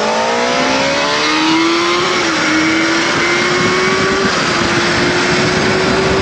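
Sur-Ron electric dirt bike accelerating hard under full throttle: its motor whine climbs steeply in pitch, dips briefly about two seconds in, then keeps creeping higher. Heavy wind rush on the microphone from riding at speed.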